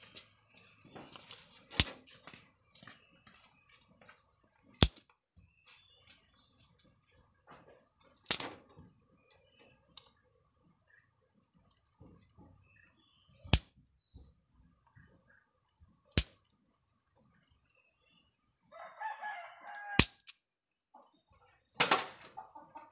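A firewood fire in an open wood stove gives about seven sharp cracks and pops, spaced a few seconds apart, over a steady high-pitched chirping. A rooster crows briefly about nineteen seconds in.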